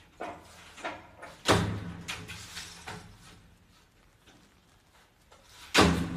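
A cat climbing and pawing at a sliding window, knocking and rattling the pane in its frame: a series of knocks, the loudest about one and a half seconds in, and another loud bang near the end as it drops back to the sill.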